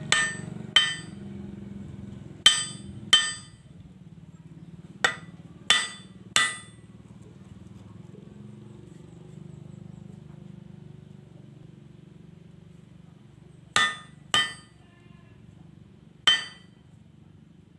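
Hand hammer striking steel on an anvil, the blade steel cut from an old bearing ring being forged. About ten sharp, ringing blows come in groups of two or three, with a long pause of about seven seconds in the middle.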